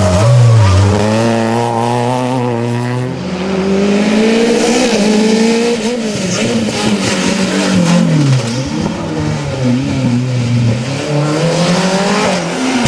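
Rally car engine revving hard under full throttle, its pitch climbing and dropping again and again as the driver shifts gears and lifts for corners.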